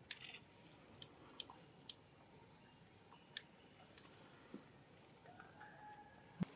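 Scattered sharp clicks and small crunches, about seven irregularly spaced, from a baby macaque nibbling at mud and bits of food and moving on dry leaf litter. Faint short high chirps sound in the background.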